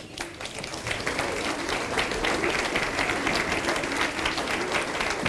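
Audience applauding, the clapping building up over the first second and then going on steadily.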